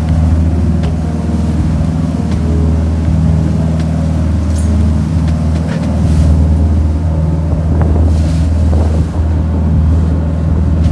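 A fishing boat's engines running steadily under way, a low drone. Wind buffets the microphone and the wake rushes along the hull.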